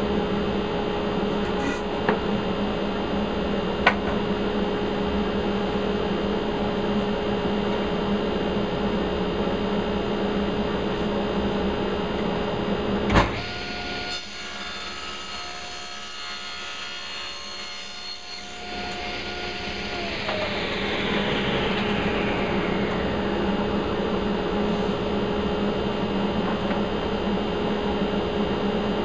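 Steady hum of shop machinery, with light clicks of wood being handled about 2 and 4 seconds in and a sharp knock about 13 seconds in. The sound then drops and changes for several seconds, a tone falls in pitch around 20 seconds, and the steady hum returns.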